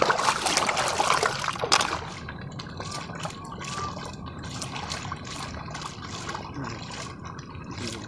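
Hands splashing and sloshing shallow muddy ditch water while rinsing field snails to wash the mud out of their shells. Loud splashing for about the first two seconds, then quieter, rhythmic swishes of water, about two to three a second.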